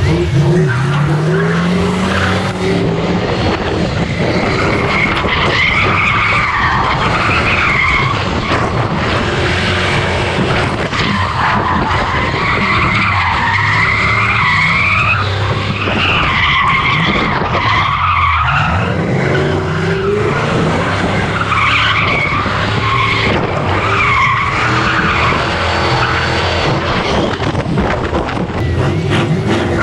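SN95 Ford Mustang drift car's engine revving hard with tires squealing through a drift, heard close from the car itself. The engine pitch climbs in the first couple of seconds, then the squeal wavers up and down as the car slides.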